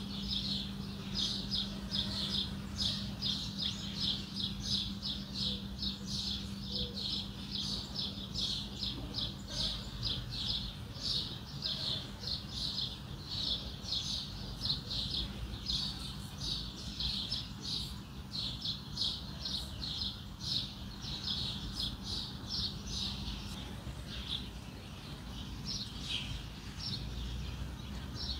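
Small birds chirping without a break in short, quick, repeated high notes, over a steady low hum that stops near the end.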